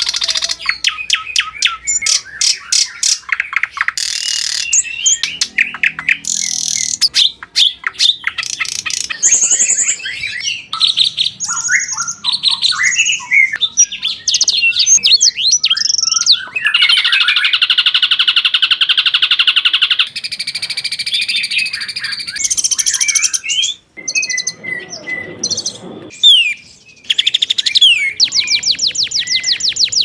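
Caged songbirds singing one after another: loud, varied song of chirps, whistles and rapid trills that changes abruptly every few seconds as one bird's song gives way to another's.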